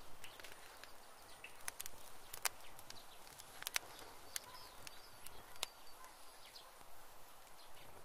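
Faint, irregular clicks and scratches of loose soil and grit, typical of a rabbit moving and scrabbling in the dirt at a burrow mouth, with a few faint short chirps in the background.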